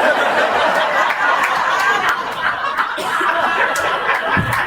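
People laughing hard, several voices overlapping in one long, loud burst of laughter.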